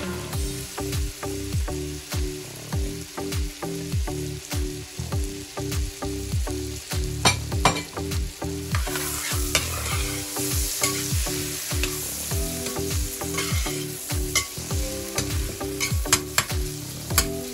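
Sliced red onions frying in butter in a stainless steel pan, sizzling, with a metal spoon stirring and a few sharp clicks of the spoon against the pan. A low, regularly pulsing hum runs underneath.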